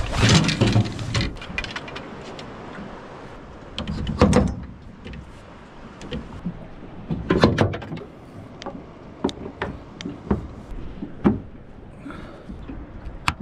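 Canvas boat tent being put up: rustling and flapping canvas with irregular knocks, thuds and clicks as its poles and clips are fitted into the mounts on the bow rails. The heaviest knocks come about four and seven seconds in, with a sharp click near the end.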